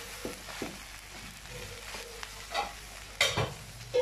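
Beef fried rice stir-frying in a wok: a steady sizzle while a wooden spatula turns the rice, scraping and knocking against the pan several times, the loudest knock a little after three seconds in.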